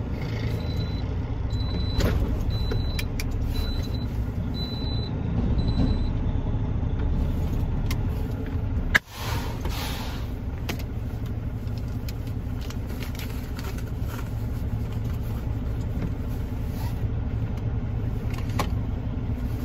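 Semi truck running steadily with a low rumble. A series of short, high beeps sounds over the first five seconds, and a single sharp knock comes about nine seconds in, after which the sound is briefly quieter.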